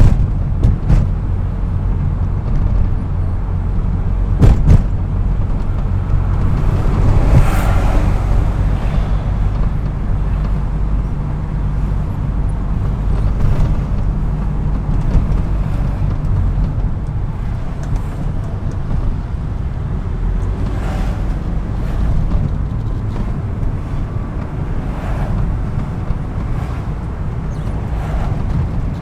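BMW E36 M3's straight-six engine and road noise heard inside the cabin while driving: a steady low drone with a couple of sharp knocks in the first five seconds and a brief swell about seven seconds in.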